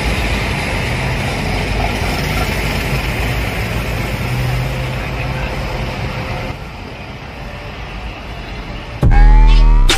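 Intercity coach with a loud free-flowing exhaust running at highway speed, a steady engine drone with road and wind rush, heard from a vehicle close behind. The noise eases a little about two-thirds through, and near the end it is cut off by loud electronic music.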